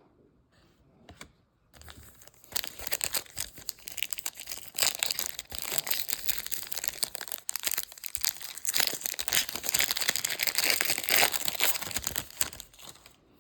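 Foil trading-card pack wrapper being torn open and crinkled by hand, a dense, continuous crackling that starts about two seconds in and stops shortly before the end.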